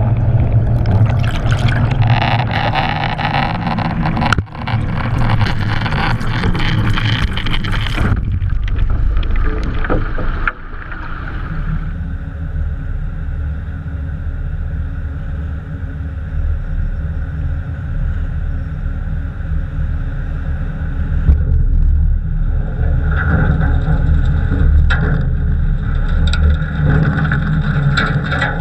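Underwater recording of a scuba diver's breathing: loud crackling hiss of exhaled regulator bubbles for about the first eight seconds, then a steady low rumble with a faint hum.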